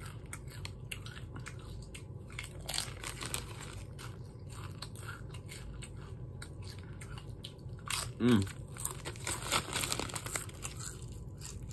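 Tortilla chips crunching and being chewed, with a brief vocal sound from the eater about eight seconds in. Near the end the chip bag crinkles as it is shaken.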